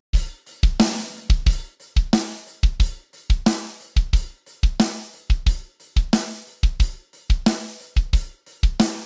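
Sampled acoustic drum kit from the MDrummer virtual drummer playing a steady beat: kick drum, snare drum and cymbals.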